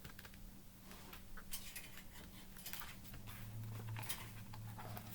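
Faint rustles and light taps from a picture book being handled, over a low steady hum that grows stronger about three seconds in.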